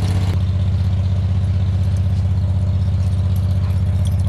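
An engine idling steadily: a low, even running sound with a fast, regular pulse.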